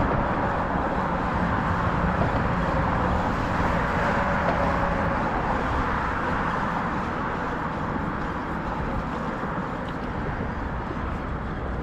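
Road traffic passing on the bridge: a steady rush of vehicles with a faint engine hum in the first half, easing off slightly toward the end.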